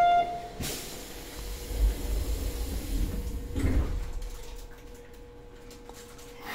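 Electric train's sliding passenger doors closing at a station stop: a sudden hiss of air, then a low rumble with knocks as the doors run shut. After that the carriage settles to a faint steady hum.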